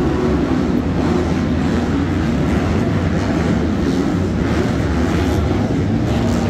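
Several 250cc four-stroke supercross bikes running around the track together, their engines revving up and down over one another in a steady, unbroken din.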